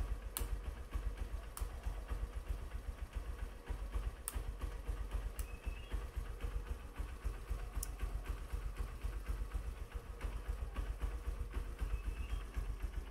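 Honda New Mega Pro's single-cylinder four-stroke engine idling steadily with a fast, even pulse, with a few sharp ticks in the first half.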